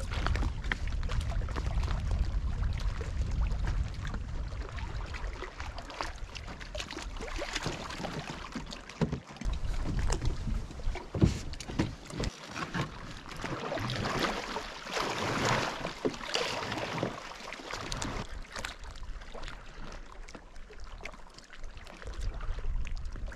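Wind buffeting the microphone while water splashes and laps around a canoe on choppy lake water. The wind rumble is heaviest in the first few seconds, and the splashing is busiest toward the middle.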